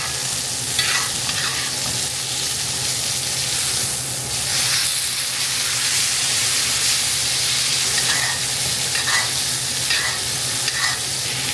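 Ribeye steak sizzling in butter and garlic in a cast iron pan, butter-basted with a metal spoon, with a few short strokes of the spoon against the pan near the start and again several times near the end.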